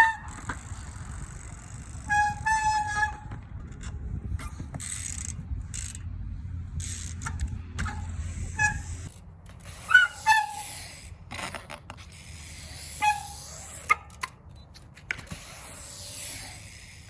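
BMX bike being ridden around a concrete bowl in a string of short cuts. The tyres roll and give short, high squeaks, with a few sharper knocks and a low rumble.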